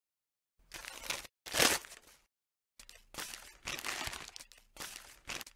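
Paper crumpling and tearing in a string of crackling bursts: a notebook page being screwed up. It starts about half a second in, is loudest about a second and a half in, and goes on in shorter bursts from about three seconds in.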